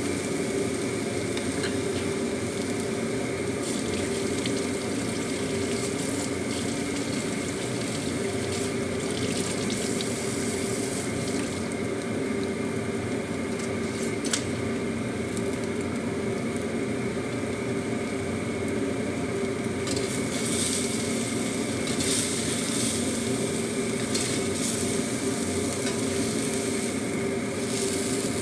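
Scrambled egg frying in a hammered wok, a steady sizzle over a constant low mechanical hum.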